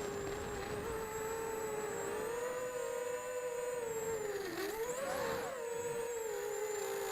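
E-Turbine 250 v2 FPV quadcopter's electric motors whining steadily. About four and a half seconds in, the pitch dips briefly, then swings up and settles back to the steady whine.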